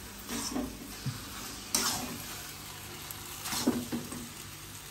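Noodles stir-frying in a steel kadhai: a steady sizzle, with a metal spatula scraping the pan and tossing the noodles in several strokes, the loudest just under two seconds in.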